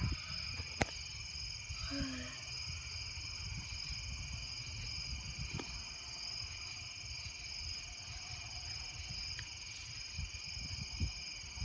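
Night insect chorus: crickets trilling steadily at several high pitches at once, over a low rumble, with one sharp click about a second in.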